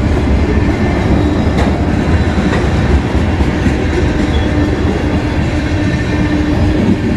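Freight train tank cars rolling past at close range: a steady rumble of steel wheels on the rails, with a few clacks from the wheels.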